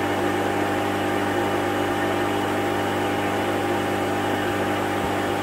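Aquarium pump running: a steady hum with an even hiss over it.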